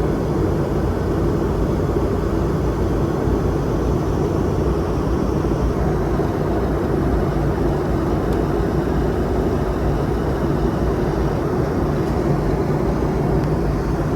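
Steady cabin roar of a Boeing 717-200 in flight, an even noise that does not change.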